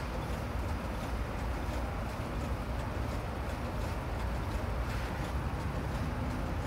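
Steady low outdoor rumble of traffic noise, with no distinct event standing out.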